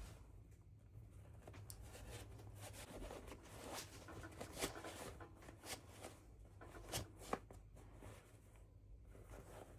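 Quiet close handling sounds: soft rustling and scraping with a few light clicks and taps, the sharpest about halfway through and a pair near the end.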